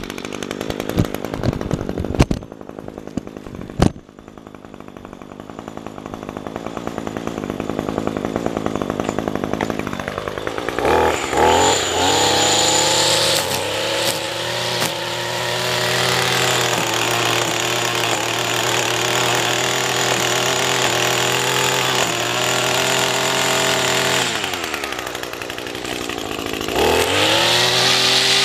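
Gas-powered string trimmer engine, with a few sharp knocks in the first few seconds while it is handled. It runs lower and climbs steadily, then revs up hard about eleven seconds in and stays at high speed cutting grass. It eases off briefly near the end and revs up again.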